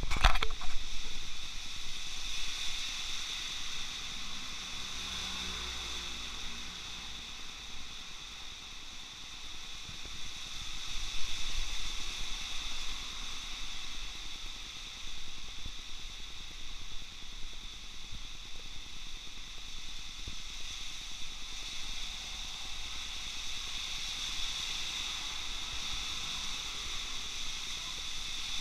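Steady hiss of heavy typhoon rain falling on a wet street, with a low rumble underneath and passing vehicles swelling on the wet road now and then, loudest about eleven seconds in. A brief clatter at the very start.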